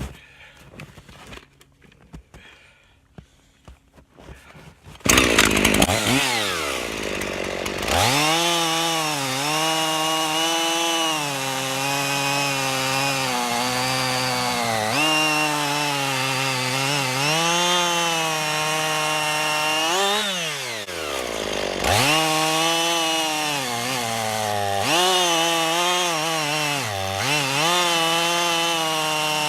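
Two-stroke chainsaw starts about five seconds in and revs up, then runs at high revs cutting through a pignut hickory trunk, its pitch dipping again and again as the chain bites under load. The chain is freshly sharpened on an electric bench chain sharpener and cuts well.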